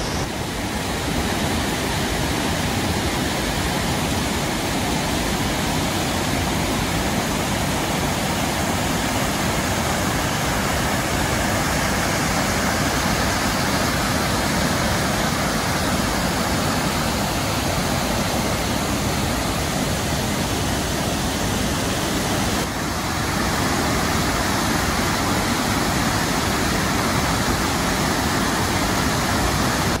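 Waterfall on the Duck River: a steady, loud rush of water pouring over rock ledges, with a brief dip in level about three-quarters of the way through.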